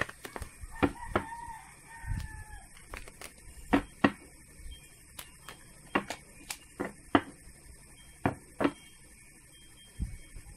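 Tarot cards being shuffled by hand, a series of sharp clicks and taps as the cards are cut and riffled. A rooster crows once in the background about a second in, a call lasting about two seconds.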